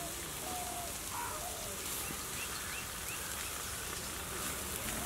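Steady crackling sizzle of skewered beef tongue roasting over an open wood fire. Birds call over it: a few short whistled notes in the first second, then several quick rising chirps about two to three seconds in.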